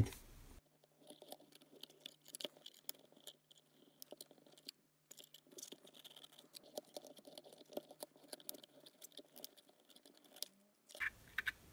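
Faint, scattered clicks and scratches as a small bench vise is tightened on a plastic USB charger case to squeeze it open, with a few louder clicks near the end.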